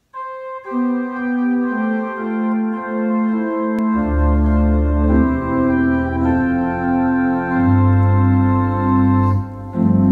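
Organ music playing slow, held chords, with deep bass notes joining about four seconds in.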